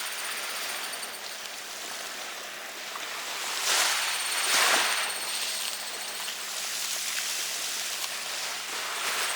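Waves washing on a beach, a steady hiss of surf with one larger wave swelling up about four seconds in.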